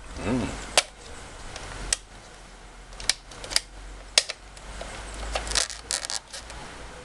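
Sharp clicks and taps from a plastic RC crawler being handled. There are single clicks every second or so, then a quicker cluster of clicks about five to six seconds in.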